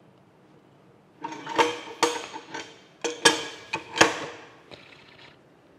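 Metal parts of a steam stoker engine's connecting rod and crosshead clanking together as they are worked into place by hand. A quick, uneven run of about eight metallic knocks with a short ring, starting about a second in, the loudest near the middle and about four seconds in.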